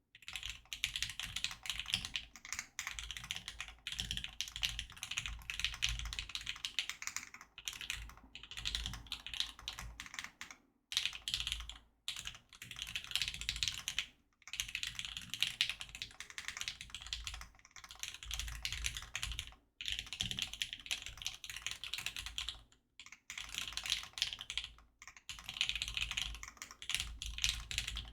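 Steady touch-typing on a custom mechanical keyboard with lubed linear Lavender switches in a POM plate and GMK keycaps: fast runs of soft, deep keystrokes broken by short pauses a few times.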